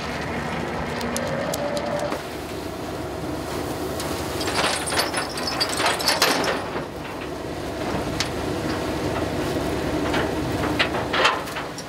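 A fishing boat's trawl-hauling machinery runs with a steady low drone as the net is brought aboard. Bursts of metal clanking and rattling come about four to six seconds in and again near the end.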